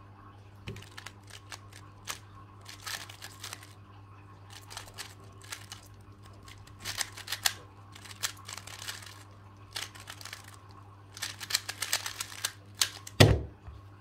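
Rubik's cube being turned fast in a speedsolve: bursts of rapid plastic clicking as the layers turn, broken by short pauses. Near the end comes a single thump as the solve finishes and the timer is stopped.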